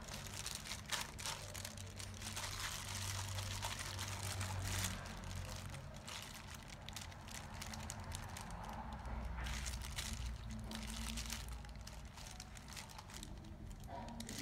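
A thin plastic glove crinkling and rustling, with wet squishing, as a hand rubs pieces of lizardfish in an onion-and-pepper marinade. The rustles come in uneven bursts.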